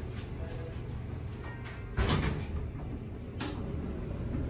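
Elevator's glass-and-stainless-steel sliding doors closing: a loud thump as the panels meet about two seconds in, with a short rattle of clicks, then one sharp click about a second later. A steady low hum runs underneath.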